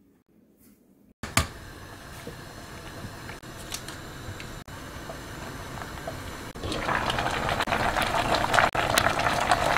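A sharp click about a second in, then a pot of pork backbones boiling steadily; after about six and a half seconds a louder, crackly bubbling of a thick spicy braise simmering in the pot.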